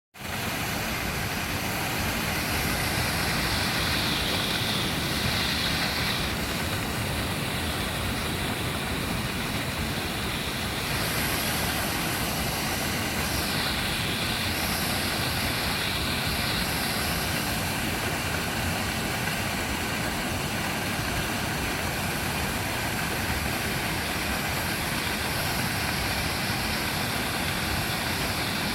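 Waterfall pouring steadily: a continuous rushing of falling water.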